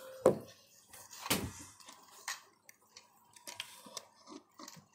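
A toy car clicking and knocking against a tabletop as it is handled: two sharp knocks in the first second and a half, then scattered light ticks.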